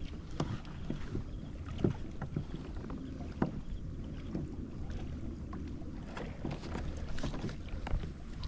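Low wind rumble on the microphone, with scattered small clicks and taps as fishing tackle and a hook are handled.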